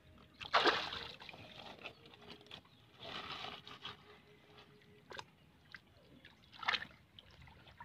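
Shallow water splashing and sloshing in irregular bursts as hands grope among and lift rocks under the surface, the loudest splash about half a second in. A short sharp click comes about five seconds in.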